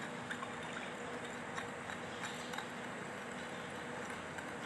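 Metal spoon stirring sugar into milk in a glass bowl: a few faint, scattered clinks and scrapes against the glass over a steady background hiss and low hum.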